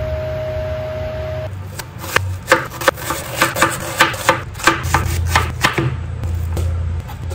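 Chef's knife chopping an onion on a plastic chopping board: about a dozen sharp knocks, roughly three a second, after a steady hum at the start.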